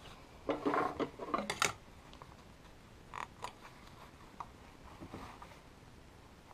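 Rustling of a nylon winter coat as it is pulled and shifted across the sewing machine table, loudest for about a second near the start with a few clicks mixed in. Later come a few short, sharp clicks and snips as scissors are brought in to trim the thread.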